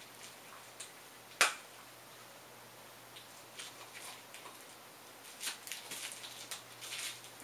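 A dog chewing and crunching on a chew, heard as irregular sharp crunchy clicks. There is one loud crack about a second and a half in, and a quicker flurry of crunches near the end.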